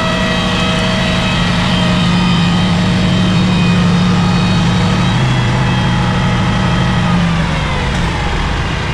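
Crane's diesel engine running steadily at raised revs, its pitch settling lower near the end.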